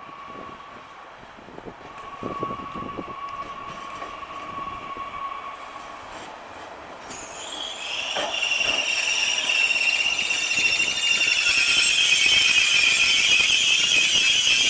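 A train on the rails: first a steady tone with a few knocks, then from about seven seconds in a loud, high-pitched metallic squeal from its wheels and brakes that builds and holds.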